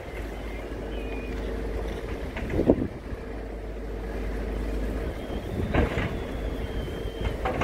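A boat's engine running with a steady drone, wind buffeting the microphone, and a few sharp pops, the loudest about a third of the way in.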